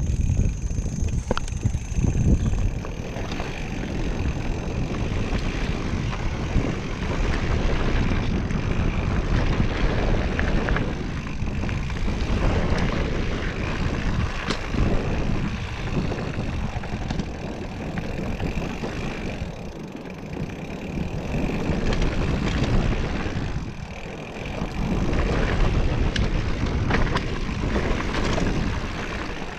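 Mountain bike being ridden over a dirt trail: wind buffeting the microphone, tyres rolling and the bike rattling, with many small knocks as it goes over bumps.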